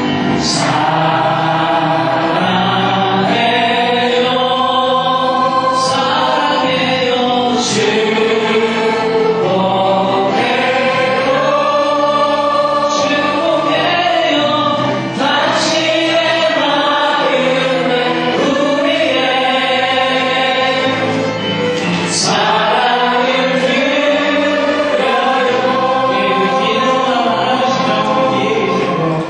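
Church choir singing a gospel praise song, many voices together.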